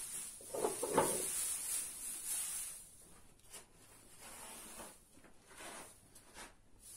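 Dry hay rustling as it is shifted in a wooden feed trough, loudest in the first few seconds, then fainter scattered rustles and light knocks.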